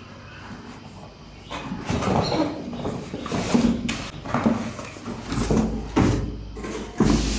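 Irregular knocks, scrapes and rustles of a motorcycle helmet's cardboard box and packaging being handled and opened, with a low rumble in the last two seconds.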